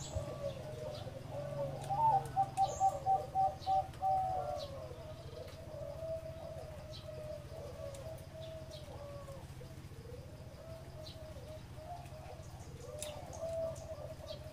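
Zebra doves cooing: many overlapping coos throughout, with a loud run of about eight quick notes about two seconds in.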